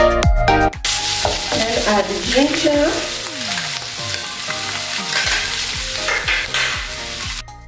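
Beef pieces frying in a non-stick frying pan with a steady sizzle, stirred with a wooden spoon. Background music cuts to the sizzle about a second in and comes back just at the end.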